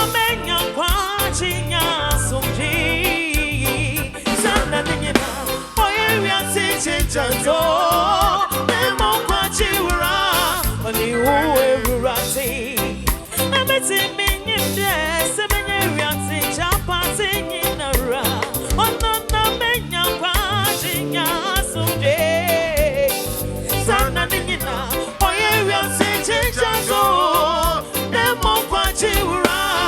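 Loud, continuous band music with a steady beat and a sung melody over it, played through a PA sound system at a sound check.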